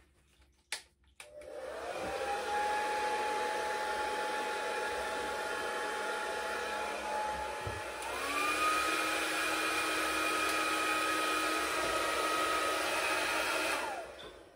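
Hair dryer blowing wet acrylic paint across the canvas in a Dutch pour. It is switched on a little over a second in and spins up to a steady whine. Just past halfway it steps up to a higher, louder setting, then it is switched off shortly before the end and winds down.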